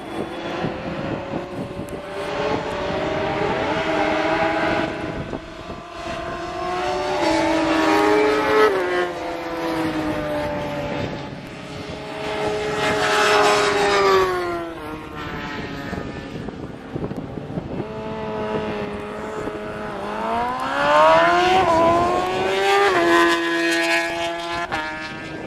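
Superbike racing motorcycles accelerating away from pit exit one after another, engines revving up through the gears: the pitch climbs and drops back at each upshift, several times over.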